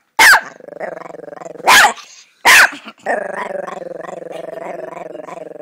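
Small Chihuahua growling continuously, a steady low rumble broken by three sharp barks in the first three seconds.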